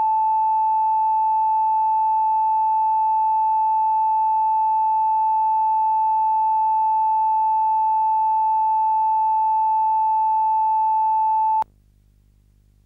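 Broadcast line-up reference tone: one steady, unwavering beep at constant loudness that cuts off suddenly about a second before the end, leaving only a faint low hum.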